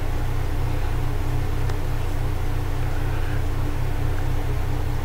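Steady low machine hum with a regular pulsing throb, from a running motor-driven appliance.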